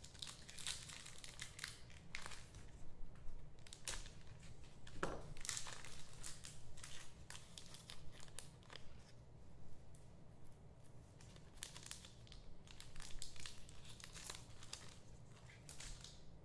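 Trading card packs being torn open and the cards handled: crinkling wrapper and card rustling in irregular clusters of sharp crackles.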